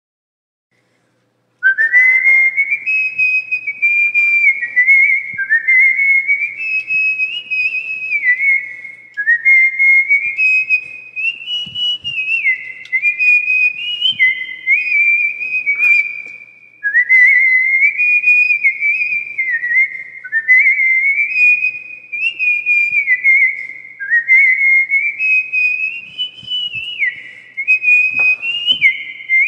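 A whistled tune starts about a second and a half in: one clear melody line in short phrases that climb step by step and then drop back, repeating.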